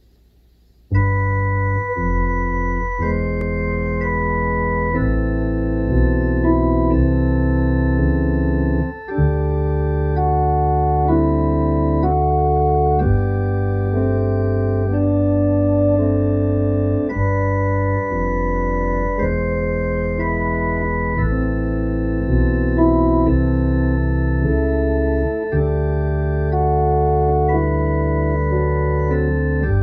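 Organ playing a slow hymn tune in sustained held chords over a deep bass line. It comes in about a second in, with a brief break in the sound about nine seconds in.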